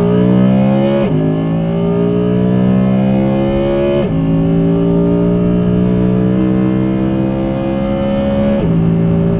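Audi R8 V10 Performance Spyder's naturally aspirated 5.2-litre V10 at full throttle, heard from inside the cabin, its pitch climbing through the gears. The seven-speed dual-clutch gearbox shifts up three times, at about one, four and nearly nine seconds in, each shift a sudden drop in pitch; after the last one the engine note holds steady.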